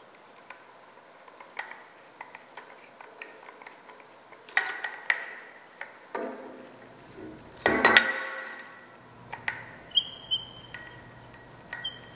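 Scattered light metallic clinks and taps of a steel T-handle hex key and an aluminium backing plate against a cast four-jaw lathe chuck as the plate's screws are run in. There are two louder ringing knocks about four and a half and eight seconds in, and short bright rings near the end.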